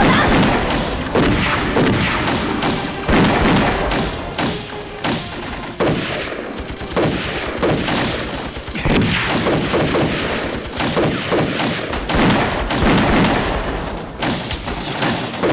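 Gunfight: pistol shots fired rapidly, many overlapping.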